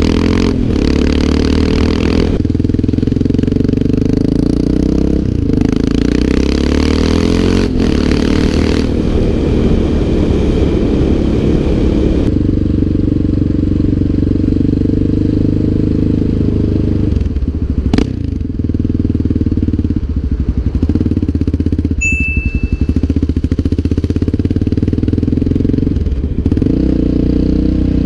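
Yamaha Raptor 700R ATV's single-cylinder four-stroke engine running while riding, the revs rising and falling through the first dozen seconds, then settling to a lower, steadier run. A sharp click about 18 seconds in and a brief high beep about 22 seconds in.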